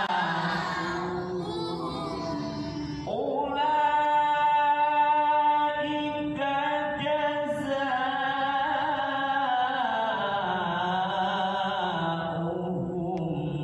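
A voice chanting Quran recitation in the melodic tilawah style. Its long held notes waver in pitch, and a strong one begins about three seconds in, followed by sliding, ornamented phrases.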